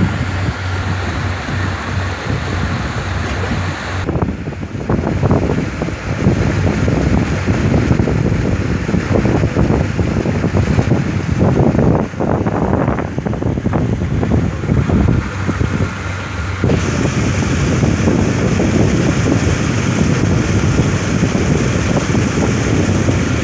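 Long boat's engine running steadily under way, with wind buffeting the microphone and water rushing along the hull. The sound changes abruptly about four seconds in and again near seventeen seconds.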